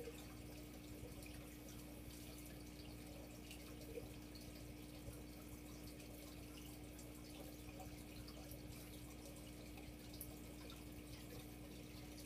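Aquarium filter running: a faint steady hum with water trickling and scattered small drips.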